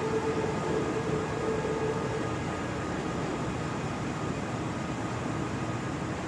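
Kintetsu 80000 series Hinotori electric train pulling away, its running noise slowly fading; a steady whine fades out about two seconds in.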